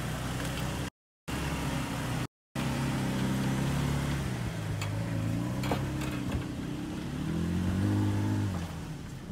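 2017 Toyota Tacoma's engine revving up and down under load as the truck climbs a steep rutted hill on 35-inch off-road tires, with the pitch rising again near the end. The audio cuts out briefly twice about one and two seconds in.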